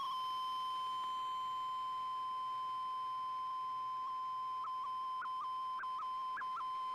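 Shortwave data broadcast of an MFSK picture, heard through an Icom IC-R8600 receiver: a steady, pure high tone carrying the dark opening lines of the image. From about halfway in, brief upward pitch blips come about four times a second and climb higher toward the end as brighter parts of the picture start to arrive.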